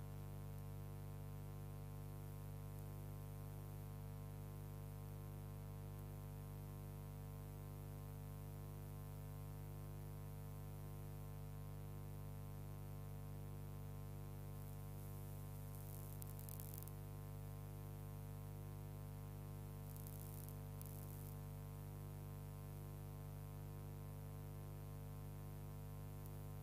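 Steady electrical mains hum with a stack of overtones, unchanging throughout, with a few faint brief crackles of static about halfway through.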